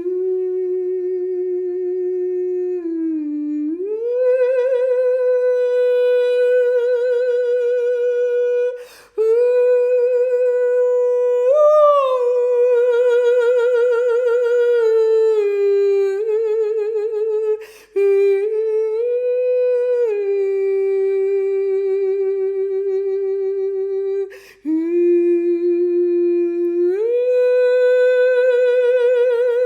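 A single unaccompanied voice humming and singing long, held wordless tones, gliding up and down between notes, some with a slow wavering vibrato. It breaks briefly for breath three times.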